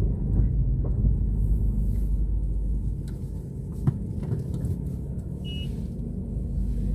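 Low, steady rumble of engine and road noise inside a car's cabin while driving slowly. A single sharp knock about four seconds in and a short high beep about a second and a half later.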